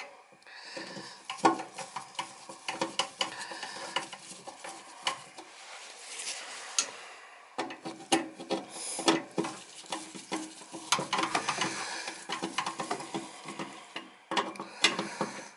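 Irregular light clicks, taps and scrapes of hands and small metal parts working a replacement igniter into a gas furnace's burner assembly.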